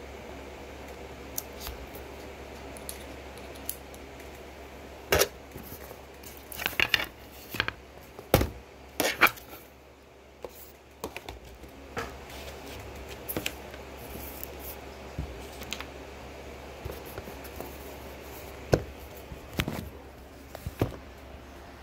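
Handling noise from unpacking a webcam: scattered sharp clicks, taps and scrapes of the box and packaging. A dense cluster comes about five to nine seconds in, and a few more near the end.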